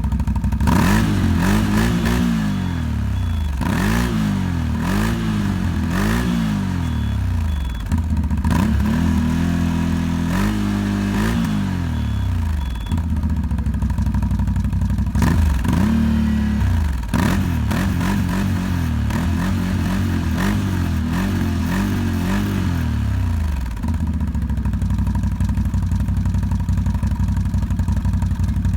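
2021 CFMOTO CFORCE 1000 ATV's V-twin engine being revved in a series of quick blips, each rising and falling in pitch, with a couple of longer held revs midway, then settling to a steady idle for the last few seconds.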